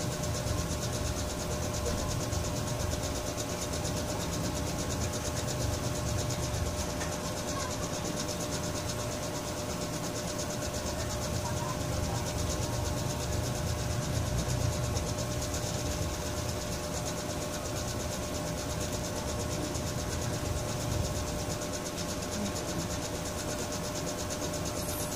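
Steady background noise with a faint, constant hum and low rumble; no distinct events.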